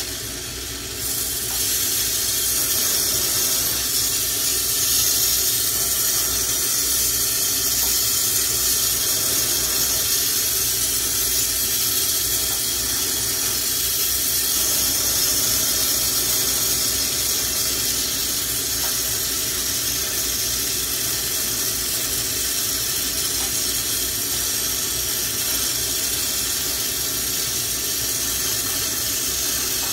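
Lampworking bench torch burning, a steady hiss of the gas flame that steps up a little about a second in and then holds level.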